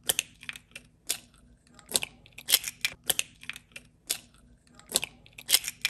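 Eggshells cracking and clicking as eggs are broken by hand and the yolks passed between the shell halves to separate them from the whites: a series of sharp, irregular clicks and cracks.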